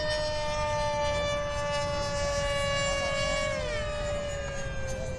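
80 mm electric ducted fan of a radio-controlled jet whining at a steady high pitch, then gliding lower about three and a half seconds in and again near the end. Wind rumbles on the microphone underneath.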